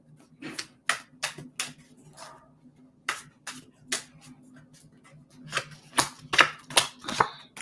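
A deck of tarot cards being shuffled and handled: a run of sharp, irregular card clicks and slaps, coming faster and louder near the end.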